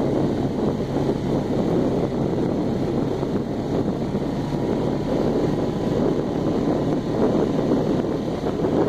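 Quad bike engine running steadily under way, with wind buffeting the microphone.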